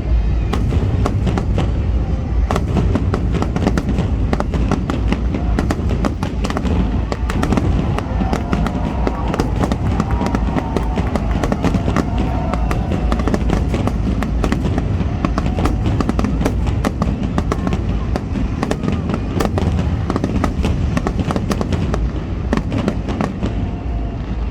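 Fireworks display going off in rapid, continuous succession: a dense stream of sharp bangs and crackles over a deep rumble.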